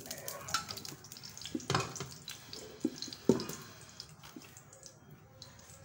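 A metal spoon spreading ghee over an iron tawa: scattered clicks and scrapes with a few sharp knocks of the spoon on the griddle, the loudest about three seconds in, over faint crackling.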